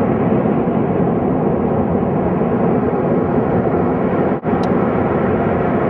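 Gas from a ruptured pipeline burning as a huge fire, a loud, steady rushing noise. It is broken once by a brief dropout about four and a half seconds in.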